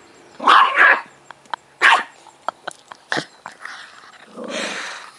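A dog barking in several short, loud bursts, with a few sharp clicks between them and a longer rough, noisy sound near the end.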